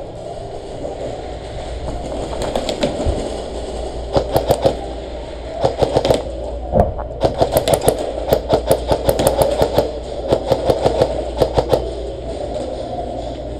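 Airsoft guns firing in quick bursts of sharp clicks, several strings of shots starting a few seconds in, over a steady rumble.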